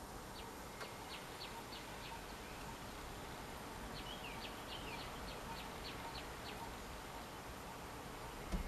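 Outdoor wildlife ambience: a steady hiss with two short runs of quick high chirps, the first about a second in and the second longer, from about four to six seconds in. A brief low thump comes near the end.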